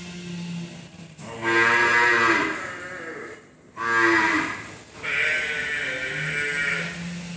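Water buffalo calling: three loud, drawn-out calls in quick succession, the last the longest, over a steady low hum.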